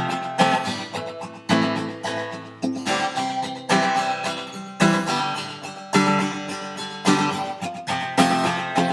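Acoustic guitar strumming chords, each strum sharp at the start and fading.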